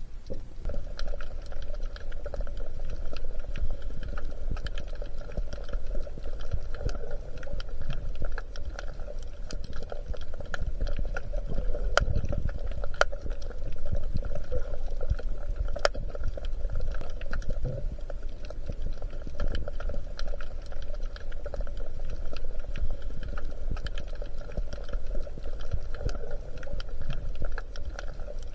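Underwater sound picked up by a snorkeller's camera: a steady low rumble of moving water with many scattered clicks and crackles, a couple of sharper clicks about halfway through.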